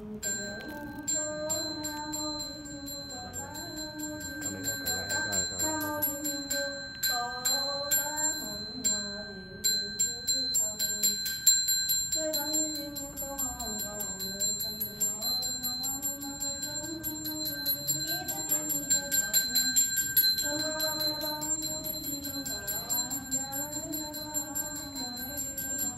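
Music: a slow, wavering melody that pauses now and then, over a fast, regular ticking beat with steady high-pitched ringing tones.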